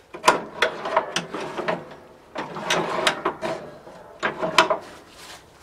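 Metal clanking and rattling with sharp clicks and a ringing clatter, in two spells: over the first two seconds and again from about two and a half to five seconds in, from the metal parts of a ride-on mower being worked on while its cutting deck is refitted.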